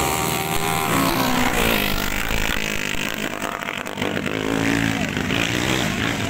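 Racing dirt-bike engines revving hard as the motorcycles pass close by on a dirt flat track, their pitch sliding down as one goes by and then rising and falling again as another passes.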